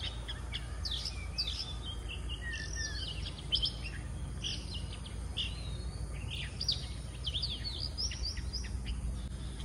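Wild birds chirping and twittering: a busy, continuous run of short, quick high notes, over a steady low background noise.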